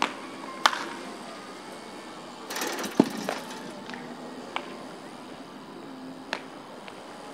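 Sharp cracks of baseball bats hitting balls in batting practice, a handful at irregular intervals, the loudest about three seconds in, over a steady low outdoor background.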